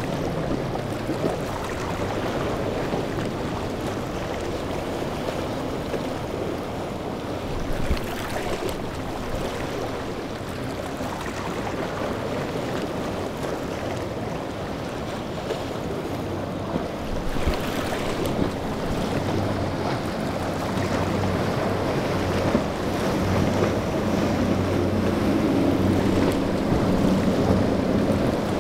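Outboard boat engines running over waves and choppy water, with wind buffeting the microphone. A steady engine hum grows louder over the last several seconds as a boat draws near.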